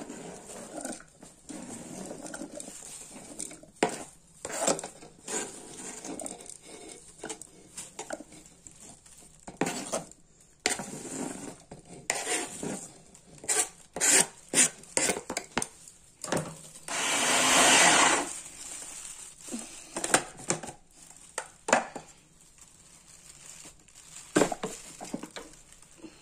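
Chopped vegetables knocked and scraped off a plastic cutting board into a food chopper's bowl, with repeated short clatters. About seventeen seconds in, the chopper runs once for about a second and a half, chopping the green chillies, red peppers, tomato and coriander.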